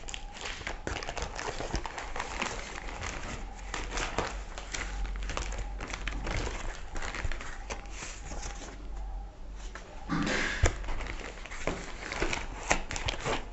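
Brown cardboard book packaging being opened by hand, torn and crinkled in irregular rips and rustles, with a louder burst about ten seconds in.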